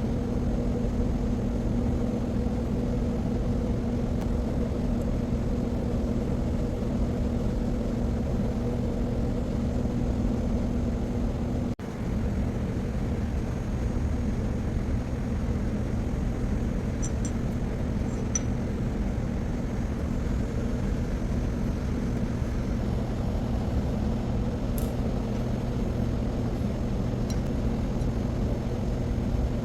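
Steady machinery hum and low rumble of an underground hydroelectric powerhouse, with a constant electrical drone. It breaks off for an instant near the middle, and a few faint light clicks come in the second half.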